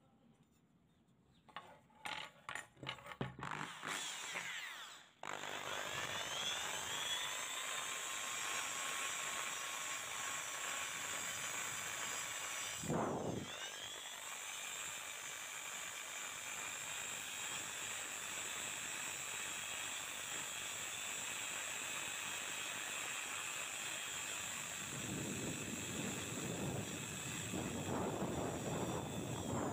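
Handling clicks and knocks, then an electric drill spinning a felt polishing bob against a rusty steel scissor blade, starting about five seconds in and running steadily, with one brief stop a little before halfway.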